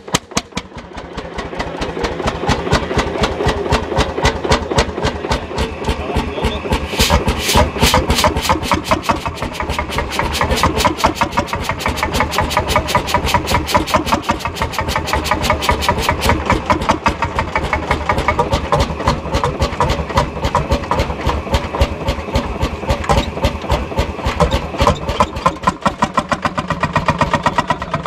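Vintage tractor engine starting and running, each firing stroke heard as a separate beat. The beats come slowly at first and quicken over the first few seconds into a steady, rapid run.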